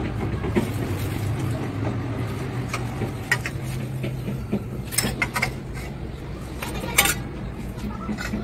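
Metal kitchen utensils clinking and knocking against one another as they are handled and arranged, a few sharp knocks standing out, over a steady low hum.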